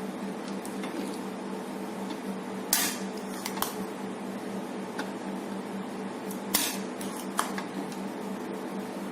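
Small metal tools clicking and scraping on an LED street-light circuit board while a dead SMD LED bead is worked loose, with two short, louder scrapes, over a steady low hum.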